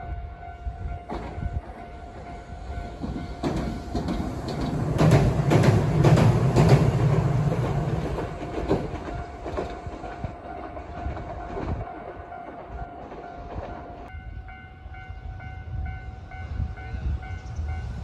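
A Hiroshima Electric Railway tram runs past, its wheels clattering over the rail joints loudest about five to eight seconds in, while a Japanese level-crossing bell rings steadily. About fourteen seconds in, a different, higher crossing bell takes over, pulsing steadily.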